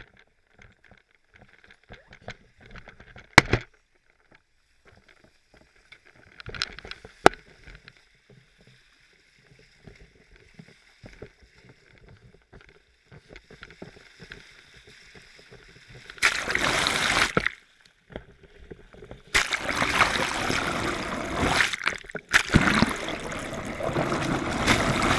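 A few sharp knocks as a pole-mounted action camera is handled, then from about 16 seconds in loud rushing and gurgling water over the camera housing as it is dragged through the sea, in two or three spells with short breaks.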